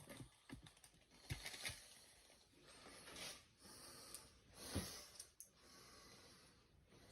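Faint handling sounds of a toilet tank bolt being fastened by hand: a few light knocks of a metal washer and nut against the tank, loudest about a second and a half in and near five seconds, with a person's breathing between them.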